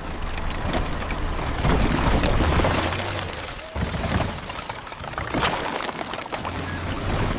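Cartoon sound effects of a bulldozer: a steady low engine hum under a dense clatter and crashing of junk and debris being pushed.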